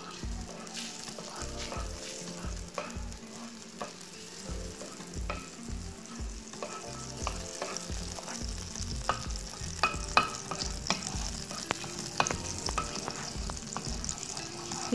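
Blue Band margarine sizzling as it melts in a frying pan, pushed around with a wooden spatula that scrapes and taps against the pan, the taps coming more often in the second half.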